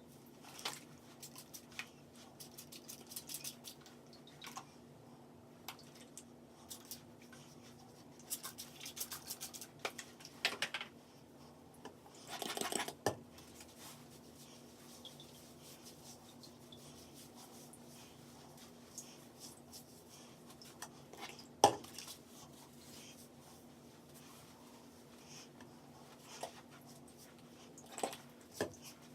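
Small handling sounds of hair-styling work: scattered clicks, taps and light rubbing, with a brief hiss lasting about a second near the middle and one sharp click about two-thirds of the way in, over a low steady hum.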